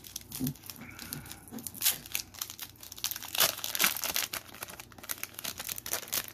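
Foil wrapper of a Pokémon Shining Fates booster pack crinkling as it is handled and torn open: irregular crackling, loudest a little past the middle.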